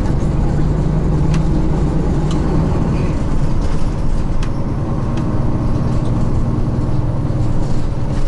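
Inside a Nishitetsu city bus: steady low drone of the bus's engine and running gear heard in the cabin, with a few brief clicks and rattles.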